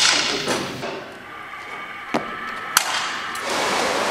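Sharp clicks and knocks at a 10 m air-pistol range, the first ringing out as the sound begins, then a few single clicks. About three and a half seconds in, this gives way to the steady wash of water in an indoor swimming pool.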